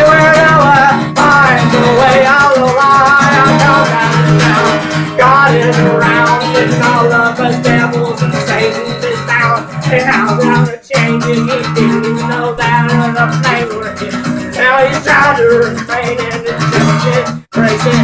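Acoustic guitar strummed with a man singing over it. The sound drops out for an instant twice, about halfway through and near the end.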